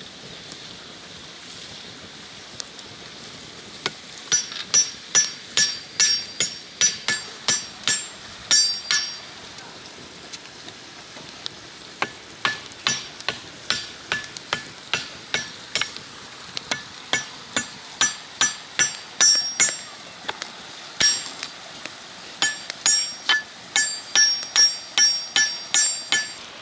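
Repeated sharp strikes with a ringing, metallic-sounding tone, about two a second. They come in several runs separated by short pauses, as of something hard being pounded or tapped against a ringing metal vessel.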